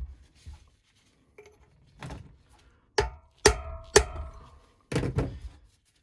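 A hammer strikes a steel chisel set in a notch of a rusty BMX freewheel. There are a couple of light taps, then four hard metallic strikes with a short ring in the second half. The blows knock the freewheel anticlockwise to unscrew it from the hub, which pedalling has tightened it onto.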